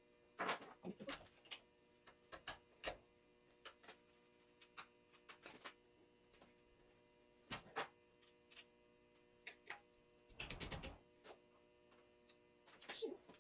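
Irregular light clicks and clinks as the change gears of a Grizzly mini lathe's end gear train are handled and taken off, with a brief denser rattle about three quarters of the way through.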